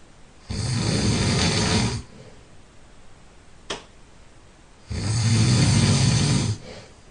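A person who is ill snoring in their sleep: two loud snores of about a second and a half each, a few seconds apart, each with a low rattling rumble and a hissing rush of air. A brief click falls between the two snores.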